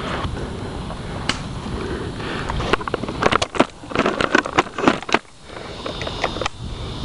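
Rustling and handling noise as the camera moves through long dry grass, with a run of sharp clicks and snaps between about three and five seconds in.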